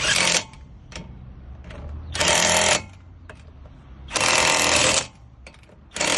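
Impact wrench hammering in short bursts about every two seconds, running down the wheel nuts one after another in a set order as the wheel is refitted.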